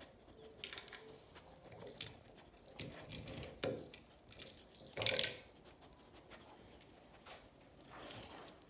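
A dog nosing and licking at a plastic treat-dispensing wheel toy stuck to a glass door, the toy and the treats inside it rattling and clicking in short scattered bursts, the loudest about five seconds in.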